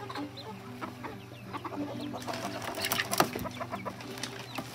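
Chickens clucking in short, low, drawn-out notes, with scattered clicks and one sharp knock about three seconds in as a rooster is picked up by hand.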